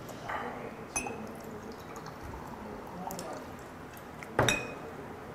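Glass soju bottle being handled and poured, liquid trickling, with a light glassy clink about a second in and a louder, ringing glass knock near the end as the bottle goes back down on the table.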